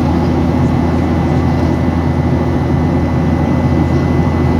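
Steady in-flight cabin noise inside a Boeing 737-800: an even, low roar of engines and airflow with a faint steady high tone above it.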